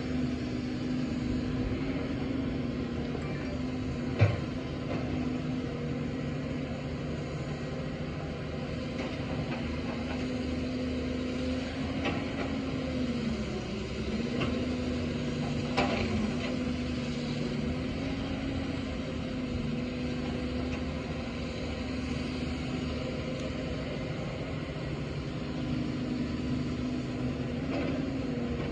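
Caterpillar hydraulic excavator's diesel engine running steadily while digging and loading soil into a dump truck, its pitch sagging and recovering several times as the hydraulics take load. Two sharp knocks stand out, one about four seconds in and one about sixteen seconds in.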